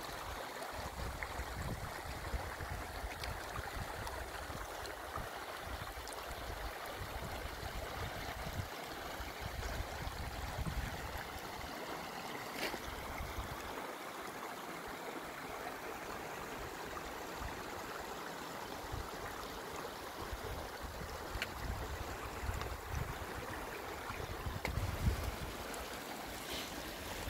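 Meltwater running steadily over glacier ice and gravel, with gusty wind buffeting the microphone.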